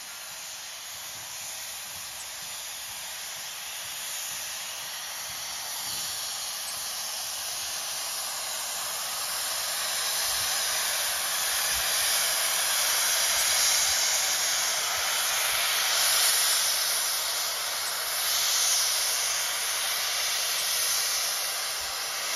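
Steam locomotive venting steam: a loud, steady hiss that slowly grows louder and stops abruptly.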